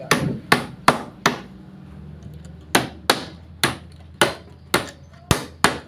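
Hammer driving nails into pine boards to assemble a wooden fruit crate: about eleven sharp blows, four quick ones, a pause of about a second and a half, then seven more.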